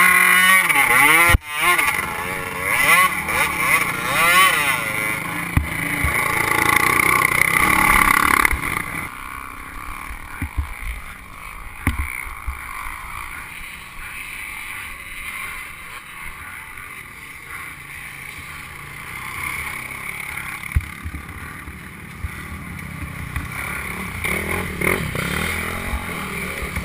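Dirt bike engines revving hard, their pitch rising and falling, for about the first eight seconds. Then the engine noise drops to a low, steady running with wind on the microphone and scattered knocks.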